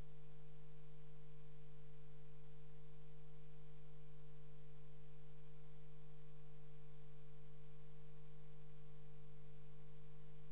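Steady electrical hum: one constant low tone with fainter higher tones above it and a light hiss. It does not change.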